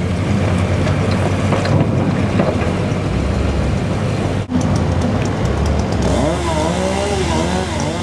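Forklift truck engine running as it drives across the yard, a steady low rumble; over the last couple of seconds the engine note rises and falls as it revs while manoeuvring.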